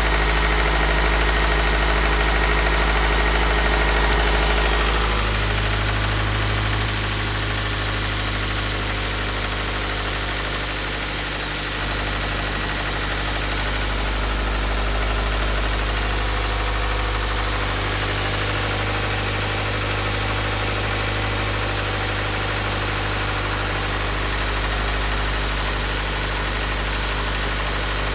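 Engine idling steadily with a knocking noise that persists after a rod-knock repair; the owner is unsure whether it comes from a bad oil pump, piston slap or bad valves. The engine's note shifts about five seconds in.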